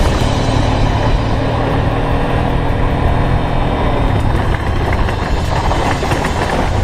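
Yamaha Ténéré 250 motorcycle engine running under way, its pitch shifting a little with the throttle partway through.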